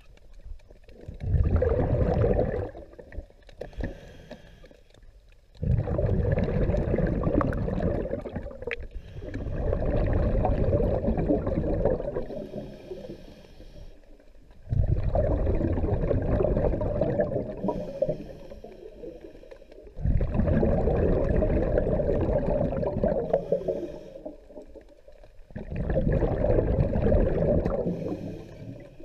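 Scuba diver breathing through a regulator underwater: long bubbling exhalations recur every five or six seconds, with a softer regulator hiss on the inhalations between them.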